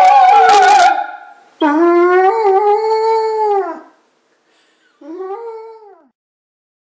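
Operatic singing with a wide vibrato breaks off about a second in, and a white poodle answers by howling twice: a long, pitched howl that rises and then falls away, and a second, shorter one a second later.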